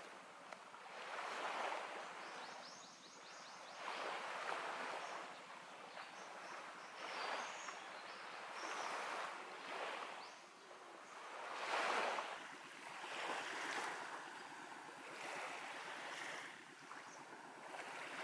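Small waves washing onto a sandy beach. The surf swells and fades every two to three seconds.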